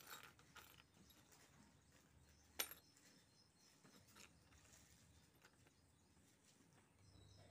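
Faint clinks and clicks of a small metal keychain batted by a kitten across a concrete floor, with one sharper clink about two and a half seconds in.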